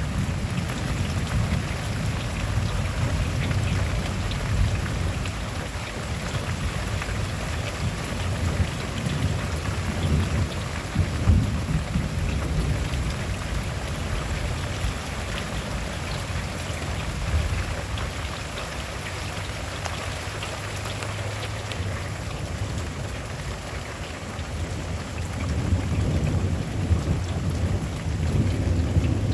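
Steady rain falling during a thunderstorm, with low rolling thunder that swells near the start, again around ten seconds in, and once more near the end.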